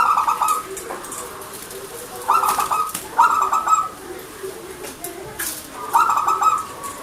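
Zebra dove (perkutut) cooing in four short bursts of quick, pulsed notes, each about half a second long: one at the start, two close together in the middle, and one near the end.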